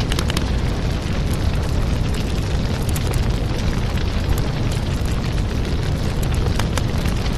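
Fire sound effect: a steady, low rumble of flames with scattered sharp crackles throughout.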